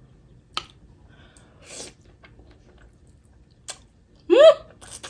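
Mouth sounds of someone eating lobster tail: a few wet clicks and a breath while chewing, then a short voiced exclamation near the end that rises and falls in pitch, a reaction to the spicy sauce.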